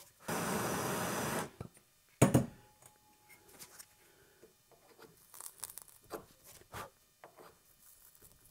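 A steady hiss lasting about a second, then one sharp knock and a scatter of light taps and clicks: work noise from burning a heated knife tang into a curly maple handle block.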